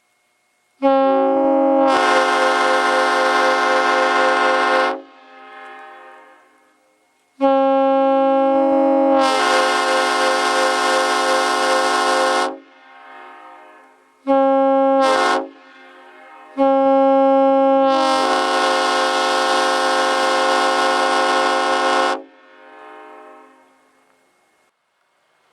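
Ex-Southern Railway Nathan M5R24 five-chime locomotive air horn sounding its chord in four blasts: long, long, short, long, the railroad grade-crossing signal. A brief echo follows each blast.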